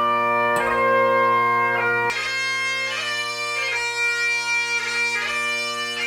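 Bagpipe music: steady drones under a slow chanter melody, notes changing every second or so.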